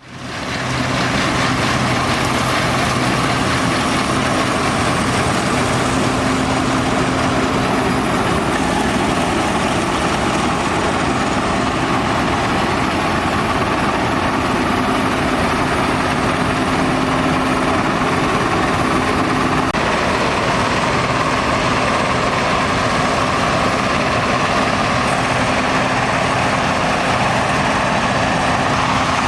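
Fortschritt E517 combine harvester running, its 14.5-litre Schönebeck V8 diesel giving a loud, steady hum under the machine's mechanical noise. The sound fades in at the start and shifts slightly about twenty seconds in.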